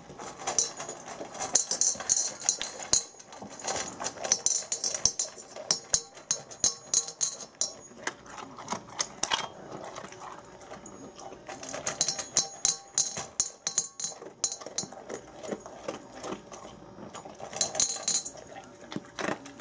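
Bernese Mountain Dog eating large kibble from a metal bowl: quick clicks and rattles of kibble against the bowl, mixed with crunching, coming in bursts. The dog gulps the kibble down with little chewing.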